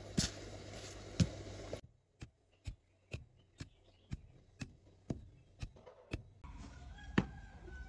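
A run of short, sharp knocks at an even pace of about two a second, with a single louder knock near the end.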